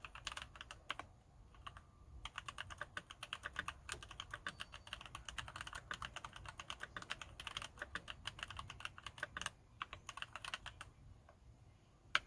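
Typing on a Ninja 87 ARC XD mechanical keyboard with Gateron Yellow linear switches lubed with Super Lube spray: fast runs of keystrokes with short pauses. The typing stops about eleven seconds in, and one last key sounds near the end.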